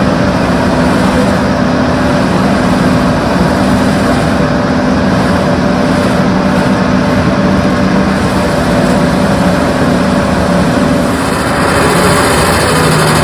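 Doosan DX340LC excavator's diesel engine and its hydraulic Enviro mulcher attachment running steadily under load.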